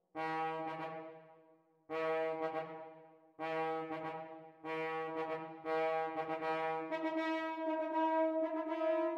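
Computer-rendered (NotePerformer) French horn quartet. A low horn plays short accented two-note figures five times, each fading away before the next. About seven seconds in, the other horns join with quiet, repeated notes that steadily grow louder.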